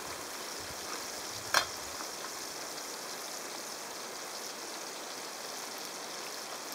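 Trout sizzling steadily in a frying pan on a camp stove, with one sharp clack about one and a half seconds in.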